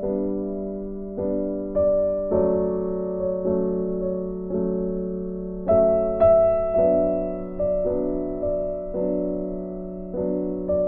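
Background piano music: a slow, gentle piece of single notes and chords, each struck and then fading away, about one a second.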